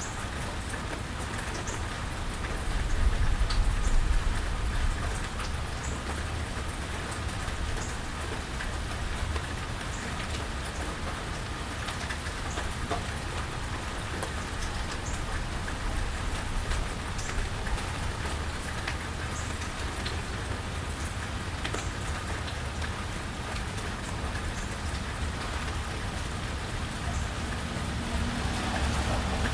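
Steady rain falling, with scattered drops ticking throughout. A low rumble swells about three seconds in and fades by about five seconds.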